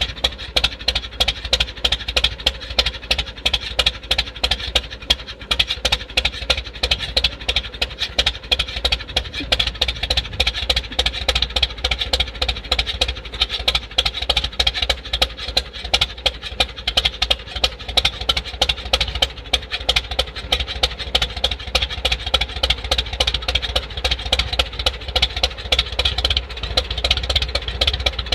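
1929 McCormick-Deering tractor's four-cylinder engine idling steadily, with an even, rapid exhaust beat.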